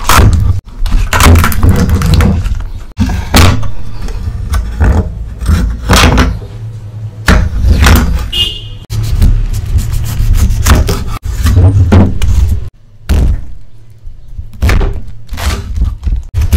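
A kitchen knife held in a prosthetic arm's clamp chopping through a head of cabbage onto a wooden cutting board: many irregular knocks and crunching cuts.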